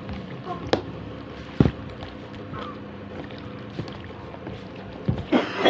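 Hands squishing and turning sliced pork in a sticky barbecue marinade on a plastic plate, with two sharp clicks in the first two seconds, over a steady low hum.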